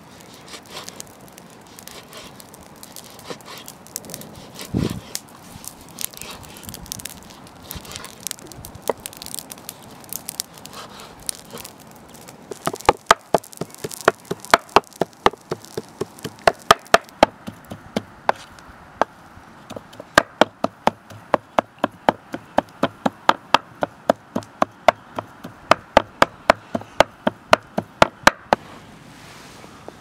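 A large knife cutting raw meat on a wooden board with light, scattered taps. From about halfway through, a cleaver chops the meat into mince with sharp, regular strikes on the board, about two or three a second.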